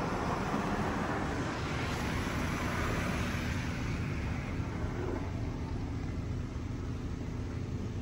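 Oasis Typhoon touch-free car wash spraying water and soap over the car, heard from inside the cabin as a steady rushing hiss with a faint low hum beneath.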